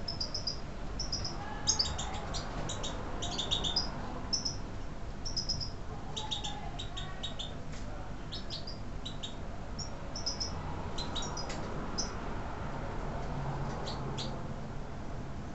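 European goldfinches (Carduelis carduelis major) calling: short, high twittering notes in quick clusters of a few notes, with brief pauses between them.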